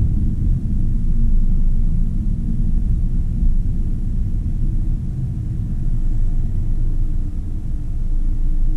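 Steady low rumble of a car's engine and tyre noise, heard from inside the cabin as the car drives and slows behind stopped traffic.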